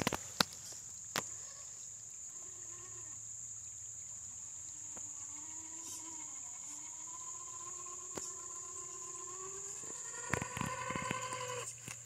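An RC crawler's electric motor whining as the truck drives, the pitch drifting slowly up and down with speed, over a steady high insect drone. Near the end the whine grows louder amid a few clicks, then cuts off suddenly.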